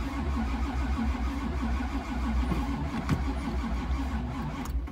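Starter cranking the dual-carb 383 stroker V8 of a 1985 Camaro Z28 in a cold start, heard from inside the car; the engine turns over rhythmically without catching, and the cranking stops suddenly just before the end. The engine is reluctant to start in the cold.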